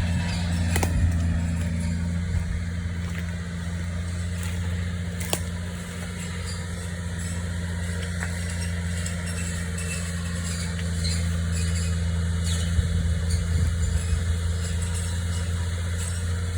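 Engine of a tree-trimming machine running steadily with a low hum, with a few sharp clicks.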